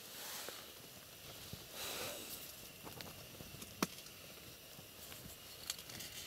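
Faint rustling and handling noises from hands working over ice-fishing gear, with two soft breathy swells of noise and one sharp click a little under four seconds in.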